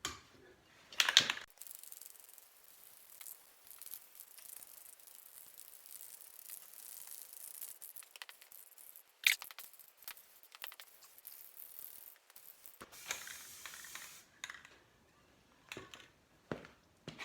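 Spray primer hissing onto the safe's steel body in one long pass of about eleven seconds, then a shorter second pass, with a clatter about a second in and a sharp click partway through.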